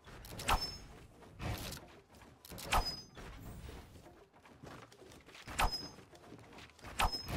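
Fireworks going off: five sharp bangs at uneven intervals, each with a short echo.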